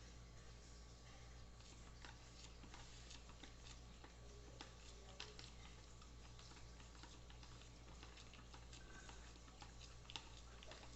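Near silence with a steady low hum and faint, irregular light clicks and taps scattered throughout.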